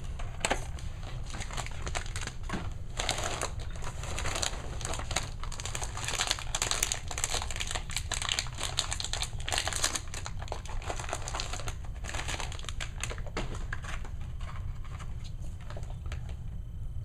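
Clear plastic figure packaging crinkling and clicking as it is handled, in irregular crackles that are thickest around the middle and lighter near the end.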